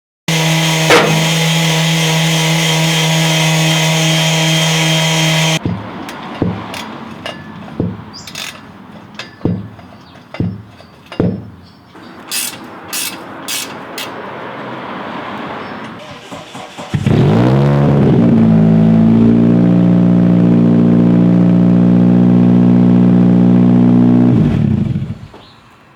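A motor running at a steady speed for about five seconds, then scattered knocks and clanks of work. About 17 s in, a motor spins up, rising in pitch, holds a loud steady speed, and stops at about 24 s.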